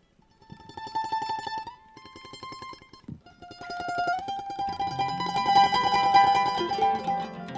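Choro band beginning a tune: a mandolin plays the melody with fast tremolo picking on held notes, and about four and a half seconds in a guitar comes in underneath with low bass notes.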